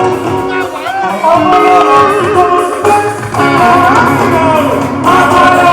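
Music with singing and guitar.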